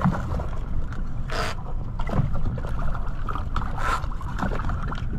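Boat engine running steadily with wind and water noise over it. There are two short rushing noises, about a second and a half in and again near four seconds.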